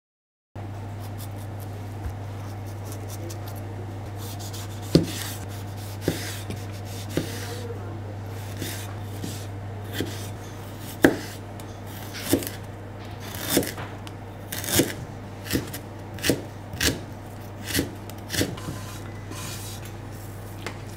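Kitchen knife cutting tomato into chunks on a wooden cutting board: separate sharp knocks of the blade meeting the board, irregular at first and then about one a second. A steady low hum runs underneath.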